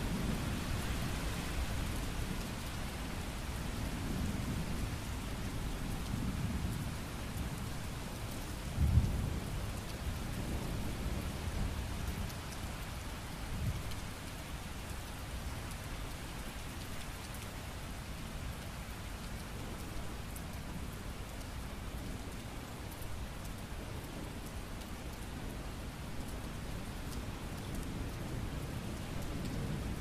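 Steady rain with low, rolling thunder that rumbles in the first half, a sudden low boom of thunder about nine seconds in, then fades, leaving mostly the rain.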